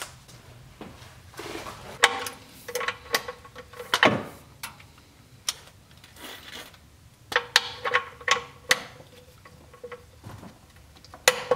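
Ratchet of a manual torque wrench clicking in quick runs, each click with a slight metallic ring, as it tightens the oil drain bolt into the oil pan, with scattered knocks of handling the tool.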